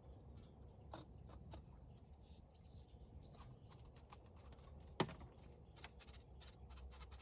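Steady high drone of insects, with scattered light clicks and knocks and one sharper click about five seconds in, from the sections of a kayak paddle being handled and fitted together.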